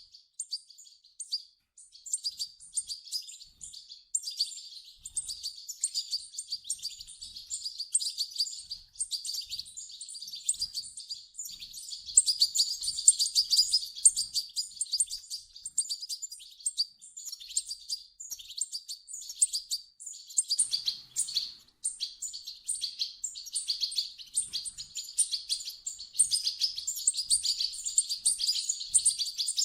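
European goldfinch chicks calling: a dense run of rapid, high chirps that goes on without pause, growing busier and louder about twelve seconds in and again near the end.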